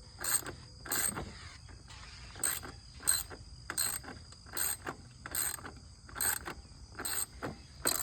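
A ratchet wrench clicking in short, regular strokes, about one every 0.8 seconds, as a fastener is turned. A steady high insect drone runs underneath.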